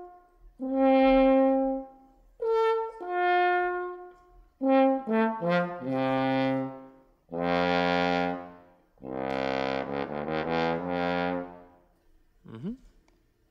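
Double French horn playing single held notes with short gaps between them, then a quick run falling down into low notes. The lowest and loudest notes come in the second half. A brief rising glide sounds near the end.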